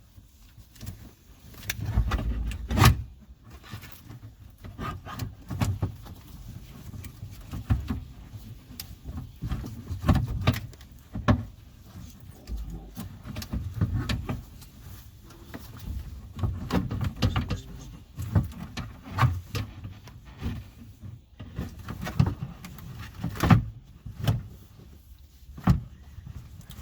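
Irregular knocks, clicks and dull thumps of a car's rear quarter window regulator assembly being worked loose and pulled out of the door trim area, plastic and metal parts knocking as it is handled.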